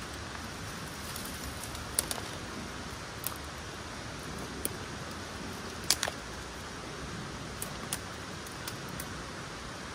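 Steady rushing outdoor background noise with about ten sharp, irregular clicks scattered through it; the loudest click comes about six seconds in.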